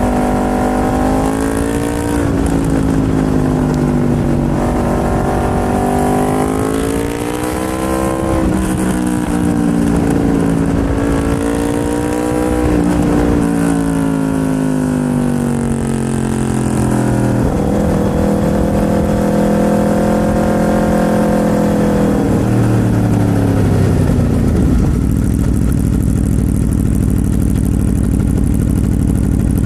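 Aprilia RSV4's V4 engine running under way, its note rising and falling repeatedly as the bike speeds up and eases off, with a few sudden steps in pitch.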